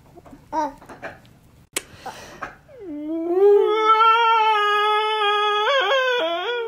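Toddler crying: one long, loud wail that starts about three seconds in and holds its pitch, then wavers and breaks near the end.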